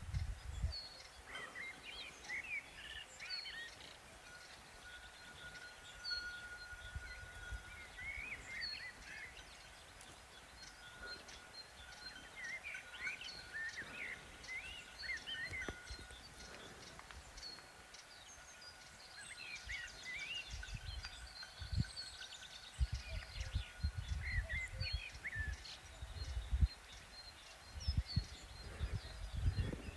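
Outdoor rural ambience with birds chirping in short repeated phrases. A steady high tone holds for several seconds in the middle, and low rumbling grows louder in the second half.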